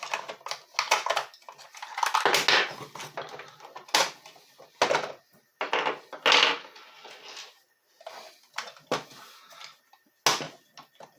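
Clicks, knocks and scraping rattles of a plastic tool housing being handled and worked on during disassembly, with its loose AA batteries shifting inside.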